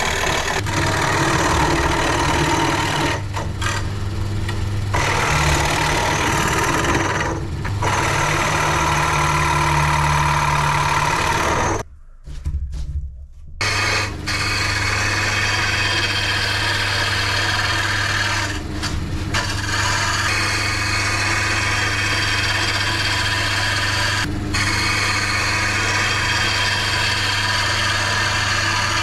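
Lumberjack wood lathe running with a steady motor hum while a turning tool roughs down a spinning firewood log, the tool's cutting sound rough and continuous as shavings fly. The sound drops out briefly about twelve seconds in.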